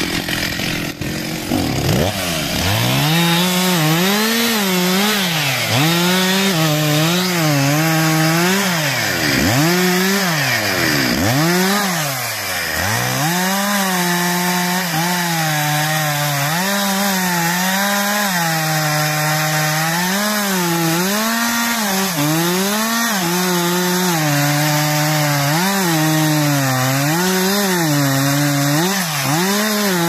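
Stihl MS 361 two-stroke chainsaw cutting through wood at high revs. Its engine note dips and recovers every second or two as the chain loads and frees in the cut.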